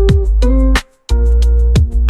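Background music with a heavy bass and a beat of sharp hits, cutting out briefly about a second in.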